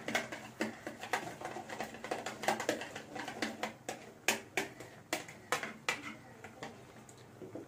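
Spoon beating raw egg mixture in a plastic bowl: quick, rhythmic clicks and wet slaps of the spoon against the bowl, about three a second, getting quieter near the end.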